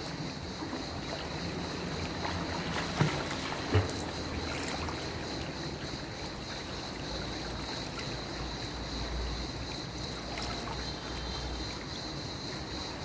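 Swimming pool water lapping and splashing as a swimmer moves away through it, with two short knocks about three and four seconds in.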